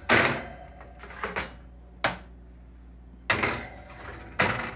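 Jenn-Air oven's wire rack sliding on its runners and metal baking sheets scraping and clanking against the wire racks, in about five sharp metallic strokes.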